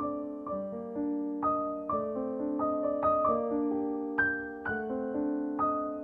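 Background piano music: a slow, gentle piece of held notes and chords, a new note struck about every half second.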